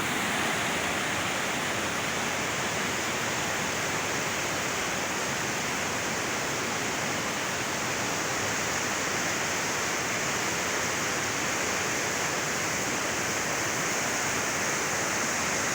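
Fast-flowing river water rushing with a steady, unbroken sound.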